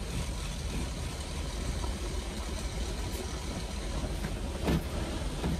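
GSRTC coach's diesel engine running with a steady low rumble. A brief louder noise comes a little before the end.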